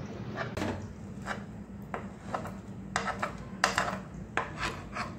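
Metal spoon scraping and tapping on a non-stick frying pan in a dozen or so short, irregular strokes as it cuts pieces from a fried egg.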